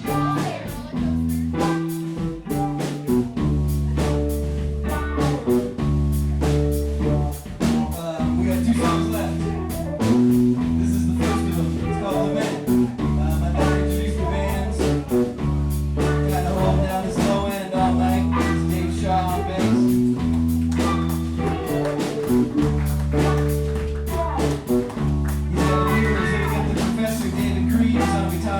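Live blues-rock band playing: electric slide guitar and lead guitar over a repeating bass line and drum kit, with no words.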